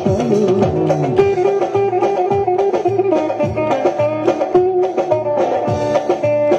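Turkish folk dance music: a plucked string melody over a steady drum beat.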